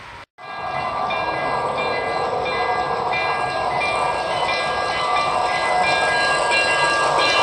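Model steam locomotive running toward the listener out of a tunnel, its sound growing steadily louder: a steady layered whine with a regular pulse a little under twice a second.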